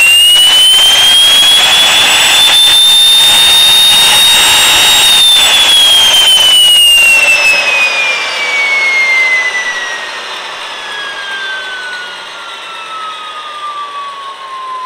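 T-62-32A gas turbine spun by its electric starter in a dry start, with no fuel or ignition so no light-off: a loud rising whine that peaks about five seconds in. It then falls steadily in pitch as the starter stops driving and the turbine coasts down, growing quieter after about eight seconds.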